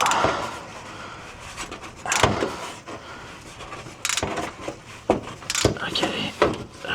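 Wrench and socket working seized, rusted downpipe-to-exhaust bolts, with several irregular sharp metal knocks and clanks as the tool is repositioned and forced.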